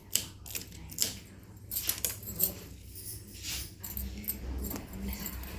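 Metal kitchen utensils clinking and tapping while pakora ingredients are handled: a series of sharp, separate clinks.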